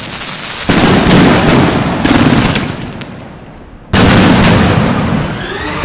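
Fireworks going off: a sudden loud report about a second in, then a long hissing crackle as a volley of sparkling tails rises, fading away. A second abrupt loud report just before four seconds, fading off again.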